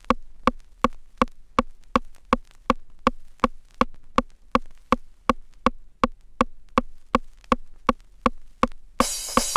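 Stripped-down electronic dance music beat: a lone clicky drum hit repeating evenly, nearly three times a second. The full trance / hard house track crashes back in near the end.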